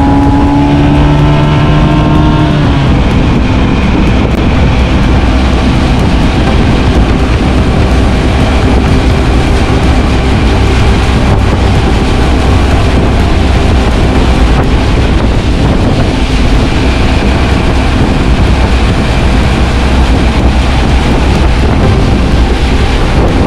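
A small boat's outboard motor running at speed, its pitch rising over the first few seconds as it accelerates, then a steady drone with water rush and wind buffeting the microphone.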